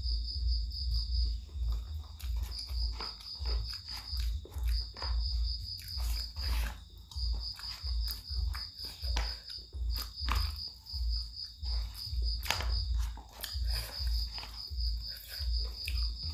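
Eating close to the microphone: low thuds of chewing about twice a second, with scattered clicks of utensils. Behind it an insect chirps in trains of fast high pulses a few seconds long.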